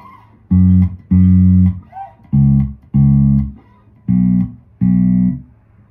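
Four-string Lakland electric bass, fingerpicked, playing a chorus line of G flat, D flat, then B. There are six notes in three pairs, each pair a short note followed by a longer held one.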